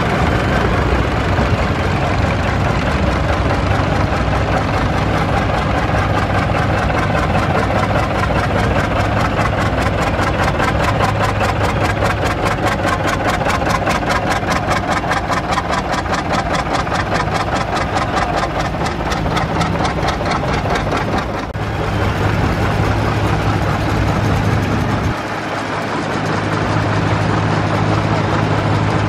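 Vintage tractor engines running as the tractors drive slowly past. Through the middle one engine close by gives an even exhaust beat of about five pulses a second.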